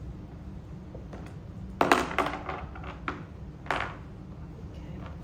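Parts and hardware of a Gorilla dump cart being handled during assembly: a loud cluster of clattering knocks about two seconds in, then a couple of single knocks, over a steady low hum.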